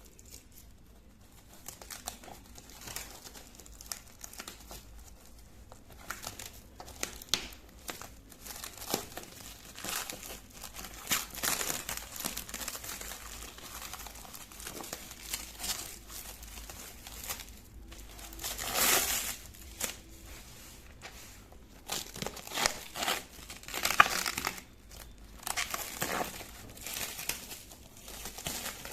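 Packaging being unwrapped by hand: irregular crinkling and rustling with scattered small clicks and knocks, including a longer rustle about two-thirds of the way through.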